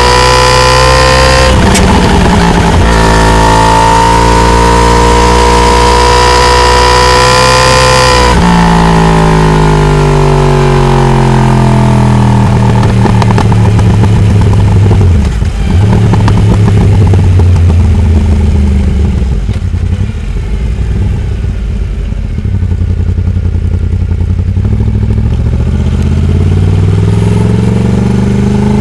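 Yamaha R1 crossplane-crank inline-four (the 'big bang' engine) running at high revs under hard acceleration, with a break in its climb about a second and a half in. About eight seconds in the revs drop sharply and keep falling as the bike slows. It then runs lower and quieter, and revs rise again near the end.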